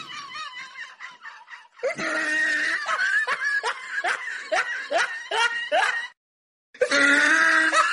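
Cartoon laughter: a run of quick, high-pitched laugh pulses, about two or three a second, that stops a little after six seconds. A steady, held pitched sound starts near the end.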